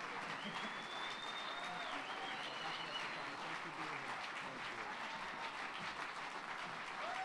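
Audience applauding steadily, with a thin high whistle over it for the first few seconds.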